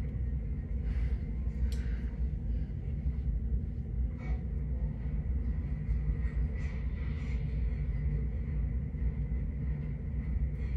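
Steady low rumbling hum, with a couple of faint sharp snips of scissors trimming wig lace in the first few seconds.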